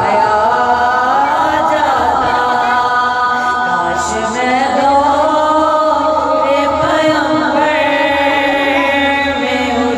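A woman singing a devotional Urdu poem into a microphone, unaccompanied, in a chant-like melody with long held, wavering notes.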